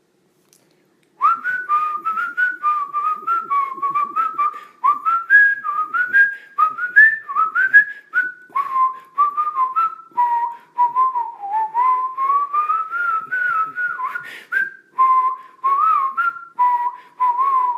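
A person whistling a tune: a run of short notes, some sliding up or down, starting about a second in.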